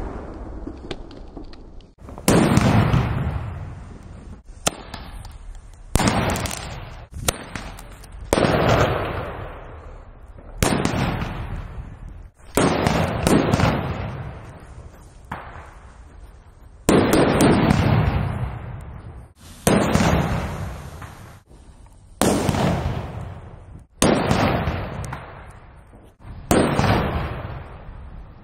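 A series of loud firecracker bangs, more than a dozen, about one every two seconds, each trailing off in a long echo.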